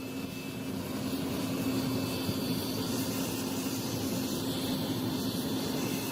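Electric power tool running steadily, a motor hum under a constant whirring noise.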